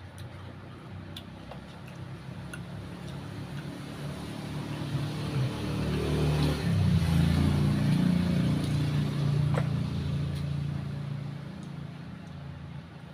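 A motor vehicle passing by: its engine hum and tyre noise swell to a peak about seven seconds in and fade away again. A sharp click sounds about nine and a half seconds in.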